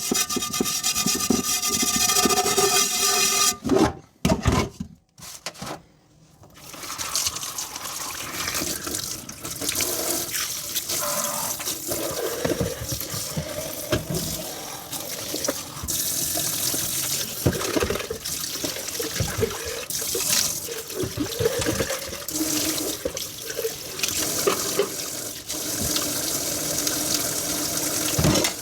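Tap water running into a kitchen sink while dishes are washed by hand, with frequent small clinks and knocks of crockery under the stream. It opens with a few seconds of a steady droning tone, then a brief near-silent break before the water starts.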